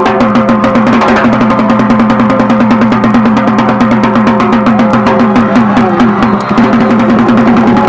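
Music with a fast, steady drumbeat.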